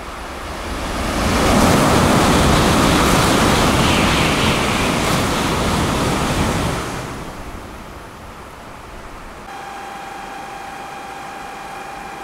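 Sanyo Shinkansen bullet train passing through the station at high speed without stopping: a rushing roar builds over about a second, holds for about five seconds and falls away, over the steady hiss of heavy rain. Near the end a steady electronic tone sounds.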